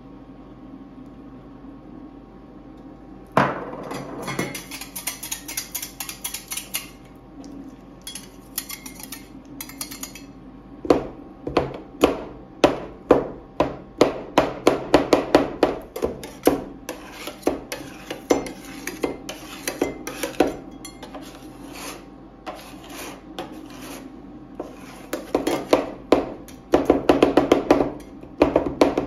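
Two metal ice cream roll spatulas working on a steel cold plate: a stretch of scraping a few seconds in, then rapid, repeated clacking strikes as the blades chop a chocolate brownie bar into the liquid ice cream base. A steady low hum underlies the start.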